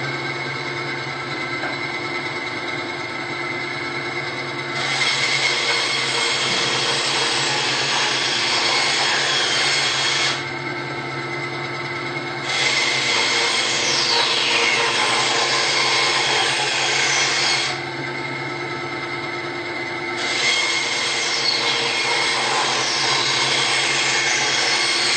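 SKIL 3386-01 9-inch band saw running with a steady motor hum while its blade cuts through a Douglas fir 2x4 three times. Each cut is a louder hiss of blade in wood lasting about five seconds, the first starting about five seconds in, with the saw idling between cuts.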